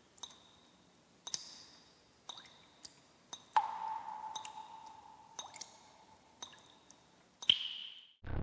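Sparse electronic plinks and drip-like blips, about a dozen, each with a short ringing tone. About three and a half seconds in, one holds a lower tone for around three seconds, and near the end one slides down in pitch.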